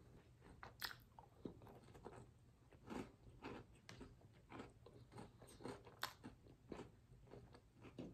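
Soft, close chewing of a crunchy Reese's Sticks peanut-butter wafer bar: irregular crisp crunches, a few a second, with sharper cracks about a second in and again near six seconds.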